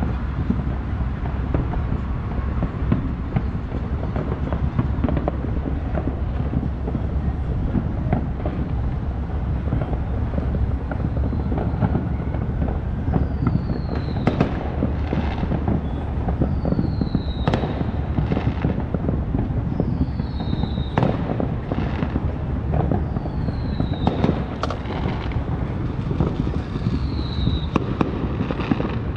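Distant Independence Day fireworks and firecrackers popping and banging over a steady low rumble. From about halfway through, a short high whistle falling in pitch repeats about every three and a half seconds.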